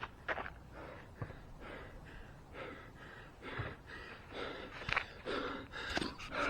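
A runner breathing hard and gasping for air after an all-out mile, the breaths coming in quick heavy pulls that grow louder toward the end, with a few sharp clicks in between.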